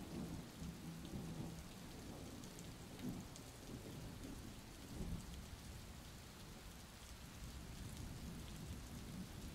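Quiet steady rain falling, with low rumbles of distant thunder swelling now and then.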